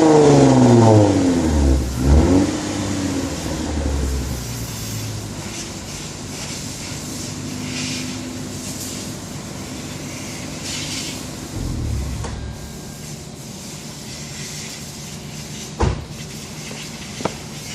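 Lexus IS250's 2.5-litre V6 through an aftermarket HKS exhaust and Invidia midpipe: the revs falling away at the start, one quick blip about two seconds in, then a steady idle with a short low rumble about halfway through. Two sharp clicks near the end.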